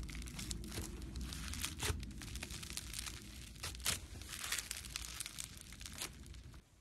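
Foam slime (floam) being squeezed and worked by hand, giving a dense run of crackling, popping clicks that stops abruptly just before the end.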